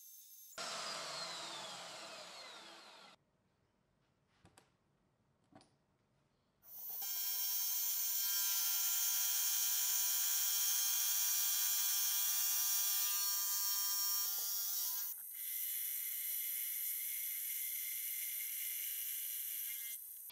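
A horizontal band saw cutting a steel billet with a falling whine, stopping about three seconds in. After a short quiet with a few small clicks, a milling machine's face mill cuts steadily across a steel bar, a loud whine of many steady tones that shifts and eases slightly in level about fifteen seconds in.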